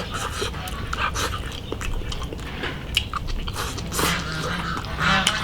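A person chewing and eating a mouthful of stewed lamb and radish, with many small wet clicks and smacks.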